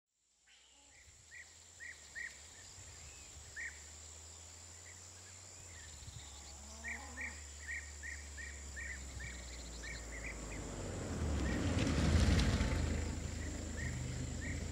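Outdoor country ambience with a bird giving short repeated chirps over a steady high tone, while a van's engine rumble grows louder as it drives up, loudest about three quarters of the way through, then eases off as the van pulls to a stop.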